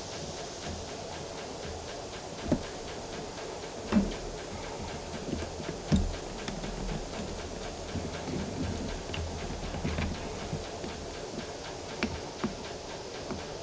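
Scattered knocks and clicks of metal parts being handled while a scuba regulator set is taken apart, with a few louder knocks over a steady low background hum.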